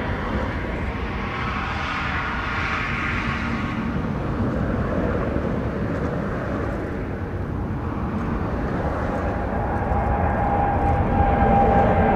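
Jet engines of an American Airlines Boeing 787-8 running with a steady deep rumble. About three-quarters of the way in a steady whine comes up and the noise grows louder toward the end as the airliner nears.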